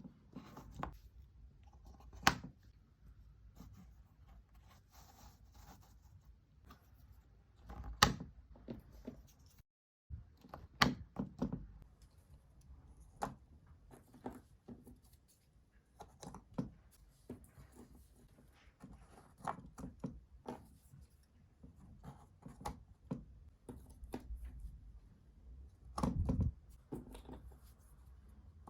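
Jigsaw puzzle pieces being handled and pressed into place: scattered light clicks and taps, with a few louder knocks.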